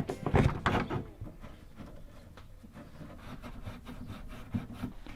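Plastic interior trim panel being pried off a Volvo 850 estate's tailgate: a few sharp clicks and knocks in the first second, then fainter scattered ticks and rubbing as the panel is worked loose. Its retaining clips are broken.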